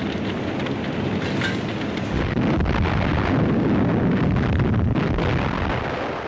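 Dense, loud rumbling with crackling noise on top, growing deeper and heavier about two seconds in: the sound bed of a war documentary over scenes of destruction.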